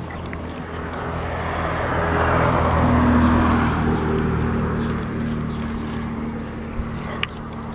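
A motor vehicle passing on the road close by: its engine hum and tyre noise build up to a peak about three seconds in, then fade away. Two short clicks near the end.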